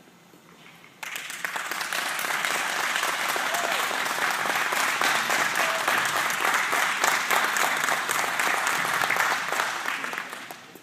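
Audience applause that breaks out suddenly about a second in, holds steady, and fades away near the end.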